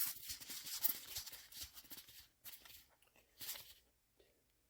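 Foil trading-card booster pack wrapper crinkling and tearing open for about two seconds, followed by two short rustles of the wrapper.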